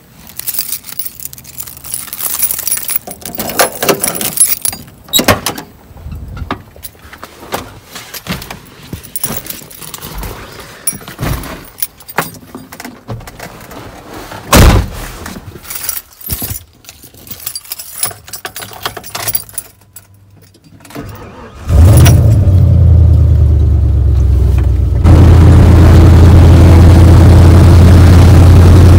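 1990s Ford F-150 pickup being boarded: the door opening, keys jangling and clicks and rustling in the cab, with a single loud thump near the middle as the door shuts. About three-quarters of the way in, the engine starts and runs with a steady low hum, growing louder a few seconds later.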